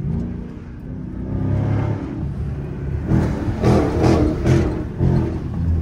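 Dodge Charger SRT 392's 6.4-litre HEMI V8 accelerating hard at full throttle, heard from inside the cabin. The engine note climbs for the first couple of seconds, then turns louder and rougher about three seconds in.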